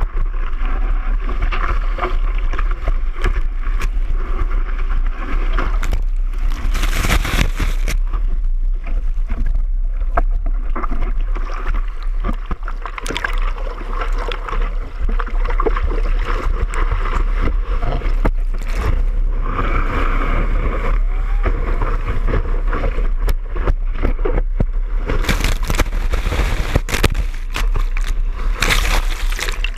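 Rushing water and breaking surf close to the microphone, loud throughout, with louder splashing surges about seven seconds in and again for several seconds near the end.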